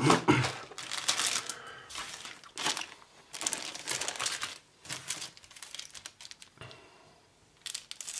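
Clear plastic bags holding model-kit sprues crinkling in irregular bursts as they are handled, with a short lull near the end before more rustling.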